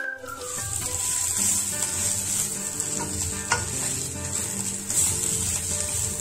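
Onion and corn fry sizzling in hot oil in a pan while a wooden spatula stirs and scrapes through it, with an occasional sharp knock of the spatula against the pan.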